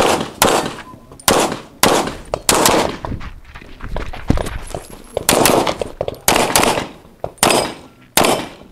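A string of pistol shots fired in quick succession, roughly two a second, each with a short echo. The shots thin out briefly around the middle before picking up again.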